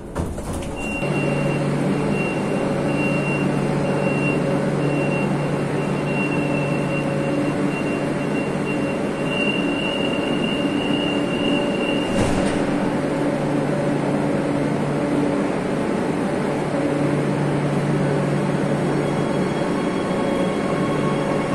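Madrid Metro train noise: a steady mechanical hum with a high thin whine. The whine stops with a short click about twelve seconds in, and the hum carries on.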